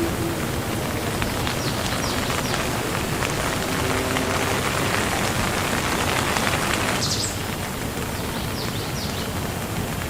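Steady rain falling on a surface, a dense patter of drops; the heavier patch eases suddenly about seven seconds in.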